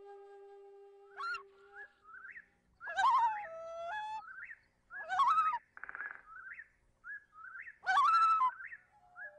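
Instrumental background music: a held flute-like note ends about two seconds in. Chirping, bird-like whistled calls follow, with three louder swooping calls spread through the rest of the passage.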